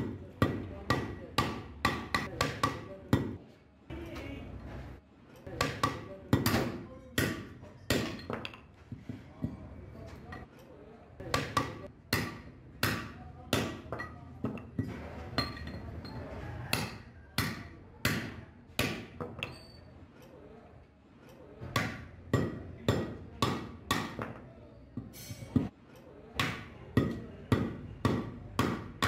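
Hand hammer striking the rivets on a truck brake shoe to set the new brake lining: runs of sharp metallic strikes, about two to three a second, broken by short pauses.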